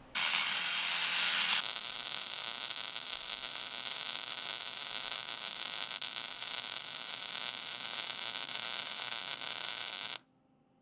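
Electric arc welding on a steel air-compressor tank, patching a hole: a steady arc crackle. It starts suddenly, changes slightly after about a second and a half, and cuts off sharply near the end.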